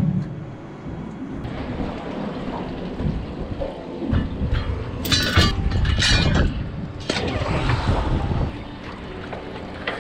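Wind buffeting the microphone as a steady low rumble, with a few sharp splashy bursts of water about halfway through.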